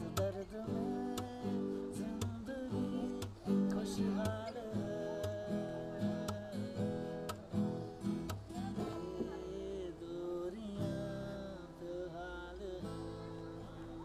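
Acoustic guitar being strummed and picked, with a voice singing a melody along with it.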